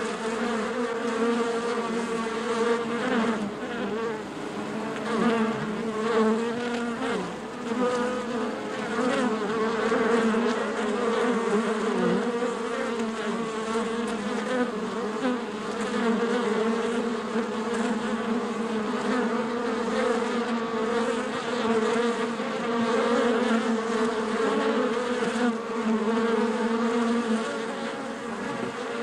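Honeybee hive humming: many bees buzzing at once in a dense, steady drone whose pitch wavers slightly as individual bees pass close.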